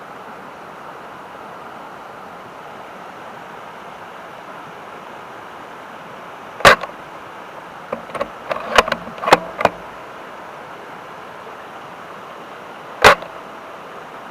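Sniper-style air gun firing twice, two sharp shots about six seconds apart, with a quick run of clicks between them. A steady hiss sits under it all.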